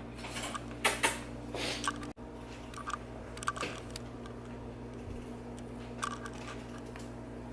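A few scattered light clicks and knocks over a steady low hum.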